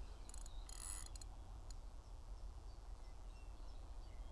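Faint outdoor ambience: a steady low wind rumble on the microphone, with a few faint short bird chirps. There is a brief patch of high clicking or chirping in the first second.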